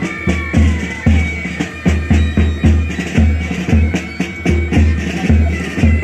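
Military pipe band playing a march: bagpipes sounding a held, droning tune over a heavy drum beat about twice a second, with sharper drum strokes between.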